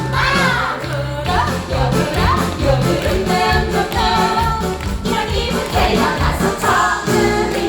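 A musical-theatre song: several voices singing over a backing track with a steady, pulsing bass beat.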